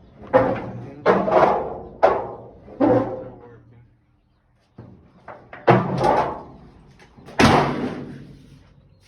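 Six heavy metallic thuds, each ringing out briefly, from the Chevy C10 pickup's steel hood and its repaired hinge being moved and shut while the hood is lined up. The last thud is the loudest, with a few lighter clicks before it.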